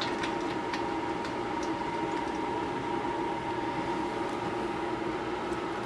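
A steady mechanical hum: two held tones over an even hiss, with a few faint clicks near the start.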